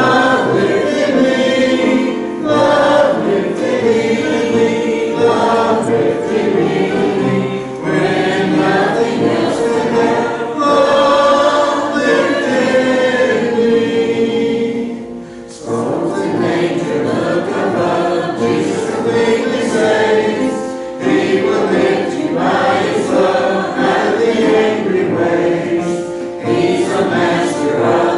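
Church congregation singing a hymn together in phrases, with a brief pause about fifteen seconds in.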